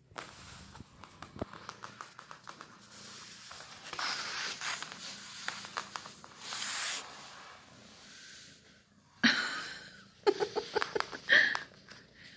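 A cat play-fighting with a person's hand on a wooden floor: paws and fingers tapping, scuffling and scratching on the boards, with breathy noise bursts in the middle and a few short voice-like sounds near the end.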